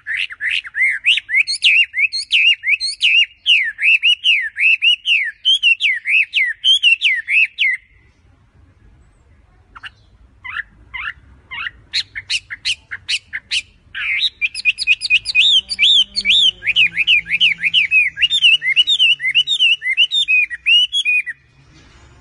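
Chinese hwamei singing loudly: two long runs of fast, repeated rising-and-falling whistled phrases, broken near the middle by a pause and a string of short, sharp notes.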